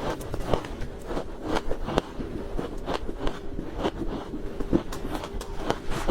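A person biting and chewing crunchy ice close to the microphone: irregular sharp crunches, one to three a second, over a faint steady hum.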